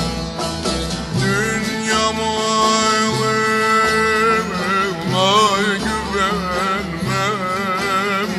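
Background music: a folk song with plucked string accompaniment. A long held note gives way, about five seconds in, to a voice singing with wide wavering ornaments.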